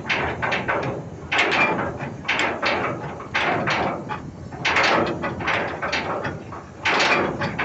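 Ship's anchor chain running out, its links clanking in a steady run of irregular heavy metallic knocks, several a second, as the anchor is let go.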